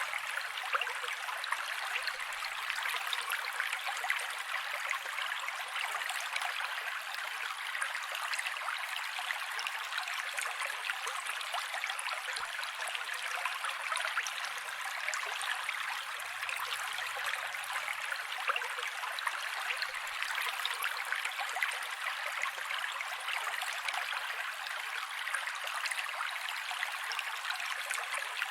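Mountain creek flowing steadily, a constant bright rush of water with no deep rumble.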